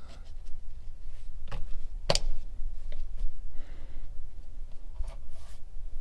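Hard plastic Tesla dashboard trim pieces being handled and fitted, rubbing and scraping with a few sharp clicks, the loudest about two seconds in.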